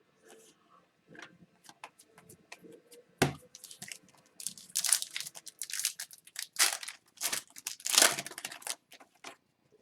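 Wrapper of a hockey card pack being torn open and crinkled by hand, in irregular crackling bursts with a sharp snap about three seconds in and the busiest tearing in the second half.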